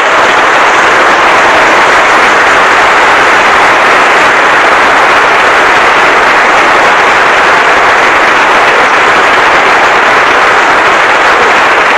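Audience applauding: a loud, steady patter of many hands clapping.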